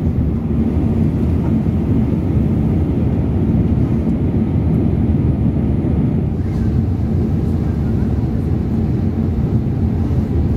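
Steady low rumble of a Boeing 787-8 in flight, heard inside the passenger cabin: engine and airflow noise.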